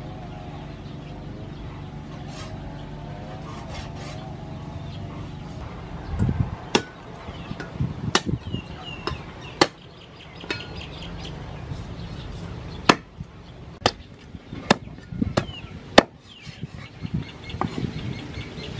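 Knife blade chopping and cutting through a raw pig's leg on a wooden chopping board: sharp, irregular chops starting about six seconds in. Before them there is a steady low hum.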